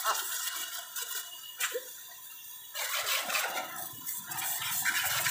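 Water spraying and splashing with a steady hiss and a few light clicks, quieter around the middle. A motor starts humming about four and a half seconds in.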